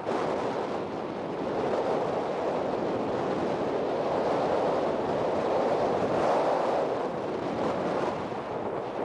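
Wind rushing over the microphone, a steady noise that slowly swells and eases, with no distinct sounds in it.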